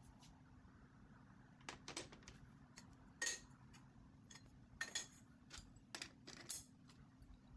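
Scattered light metallic clinks and taps, about a dozen, as metal tubing is set down on a perforated steel welding fixture table and pushed against its locating pins. The loudest knocks come a little past three seconds and near five seconds.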